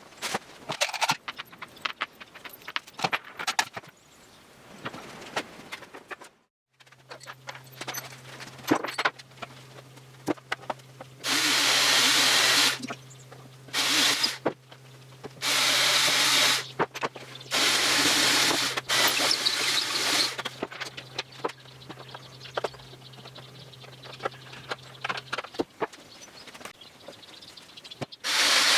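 Workshop tool work: scattered clicks and knocks, then a steady low hum with several loud bursts of a power tool running, each one to three seconds long, and another burst near the end.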